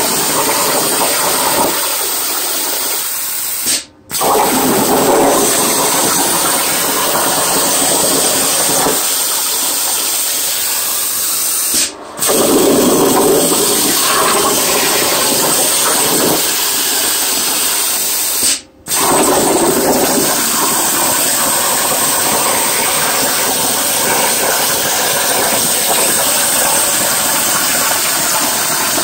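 Langmuir Crossfire plasma table's torch cutting 18-gauge sheet metal at 70 inches per minute: a loud, steady rushing hiss of the arc and air. It cuts out for a split second three times.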